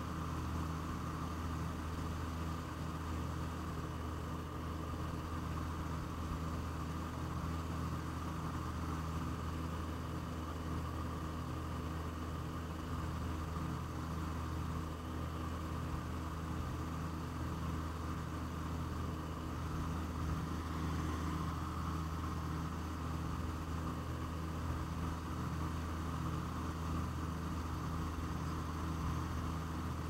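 Steady drone of an Aero Commander L-26B's twin piston engines and propellers in cruising flight, heard from inside the cockpit.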